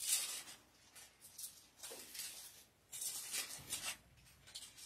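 Soft rustling of thin Bible pages being handled and turned, in several short, irregular rustles.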